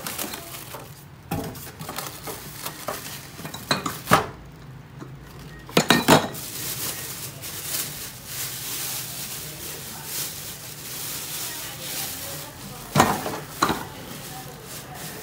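Desktop laminating machine being unpacked: plastic wrapping rustling and crinkling and polystyrene foam packing scraping, broken by several sharp knocks and clunks as the parts are handled and set down on a wooden table, the loudest about six seconds in and near the end.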